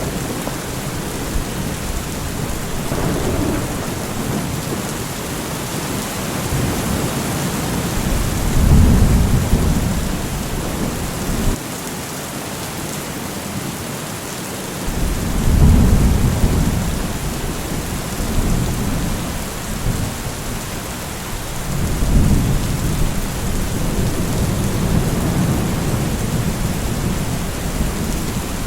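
Steady rain with thunder rolling in low rumbles three times, about a third of the way in, around the middle and again a little later.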